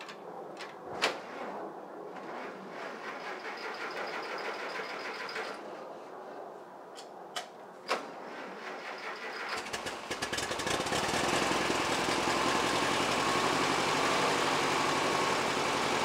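Ferguson TO30 tractor's four-cylinder petrol engine being started: a few sharp clicks and a stretch of cranking, then about ten seconds in the engine catches and settles into a steady run.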